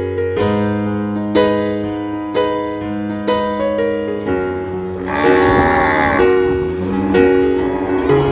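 Piano music with repeated struck notes; about five seconds in, a cow moos once over the music, a single call of about a second that rises and falls in pitch.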